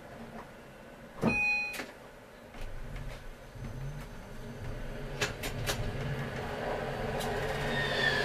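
A short, loud warning tone sounds about a second in. Then the tram's electric traction motors set in with a steady low hum as it pulls away from the stop, with a few sharp clicks over the rails. Near the end a tram passing on the next track adds rising rumble and a whine falling in pitch.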